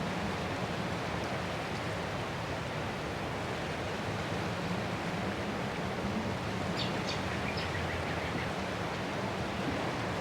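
Ocean surf washing onto shore as a steady, even rush of noise. A few faint high chirps are heard a little past the middle.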